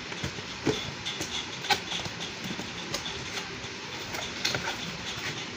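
A cardboard product box being handled and opened: irregular rustling and scraping of cardboard, with scattered small knocks.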